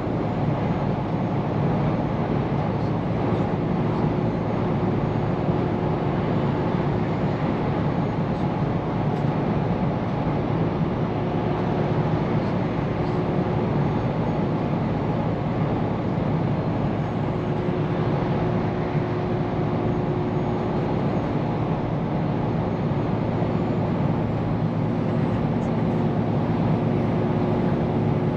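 Scania P410 car-carrier truck under way at a steady pace: an even diesel engine drone mixed with tyre and road noise, with faint steady tones fading in and out.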